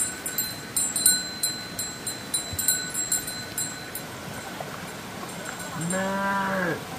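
A young cow or calf mooing once, a smooth rising-then-falling call about a second long, near the end. Before it comes a run of irregular clicks and knocks.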